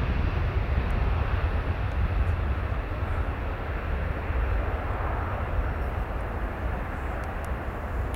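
Boeing 777 twin jet engines at takeoff thrust: a steady, deep rumble that slowly fades.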